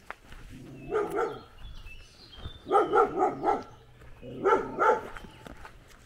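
A dog barking in three bouts: a bark or two about a second in, a quick run of four barks around the middle, and two more near the end.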